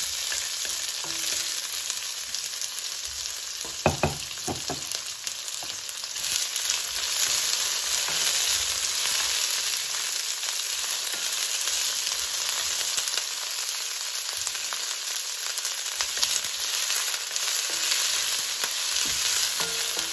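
Sliced red bell peppers and onion sizzling steadily in hot oil in a steel wok, turned with a wooden spatula, with a brief knock about four seconds in.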